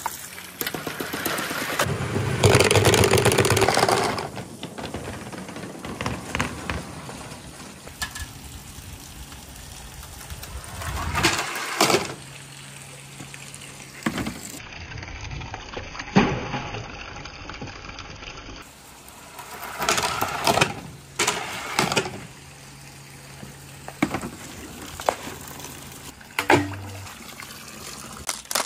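Many marbles rolling and clacking down a handmade marble run, with a dense rattle of marbles pouring through about two seconds in and further bursts of clicking and knocking later on.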